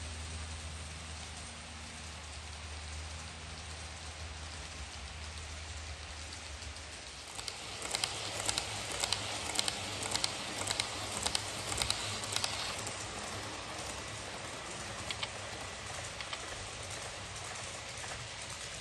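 HO-scale model train running on the layout's track. A steady low hum lasts for the first few seconds, then from about eight to twelve seconds in comes a dense clicking rattle of wheels over rail joints and points.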